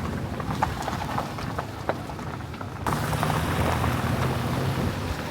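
Car interior on the move: a steady low engine and road hum, with scattered light taps and ticks over the first half before the hum comes back up abruptly about three seconds in.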